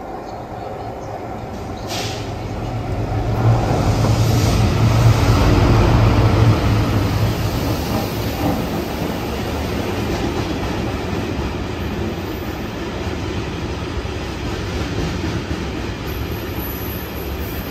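Diesel train running past the platform, its engine and wheels growing louder over the first few seconds, loudest about four to seven seconds in, then running on steadily.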